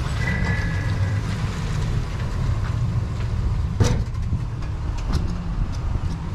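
Steady low rumble of an idling vehicle engine, with a short high beep just after the start and a sharp knock about four seconds in, then a few lighter clicks.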